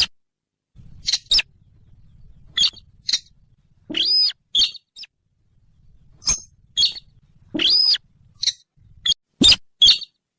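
Call of the bird that Indonesian hunters call 'sintar', played as a hunting lure. It is a string of short, sharp high chips at uneven intervals, with two longer arching notes that rise and fall, about four and eight seconds in.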